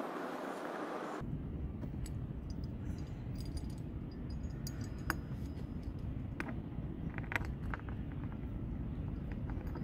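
Scattered light metallic clicks and taps as stainless bolts and a stanchion base plate are handled and fitted onto the deck, over a steady low rumble.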